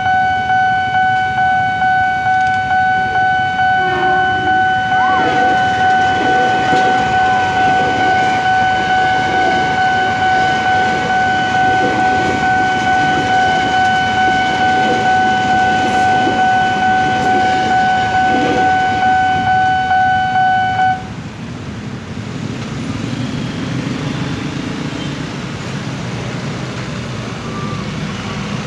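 Level crossing warning bell ringing in a steady, rapidly repeating pulse while a KRL Commuter Line electric train rumbles past. The bell cuts off suddenly about 21 seconds in, the sign that the crossing is clearing, and then the engines of the waiting motorcycles and vehicles pull away.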